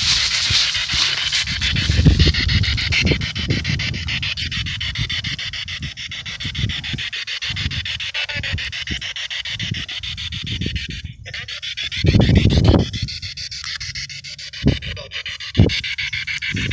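P-SB7 spirit box radio sweeping through stations: a fast, choppy hiss of static played through its small plug-in speaker. A few low thumps break in, the loudest about twelve seconds in and two short knocks near the end.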